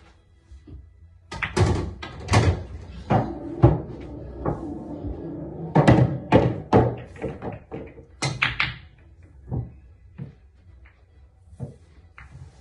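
Pool balls and cue on a pool table: a run of sharp knocks and clacks as the cue strikes the ball and balls hit each other and thud against the cushions, densest over the first few seconds, then a few scattered taps.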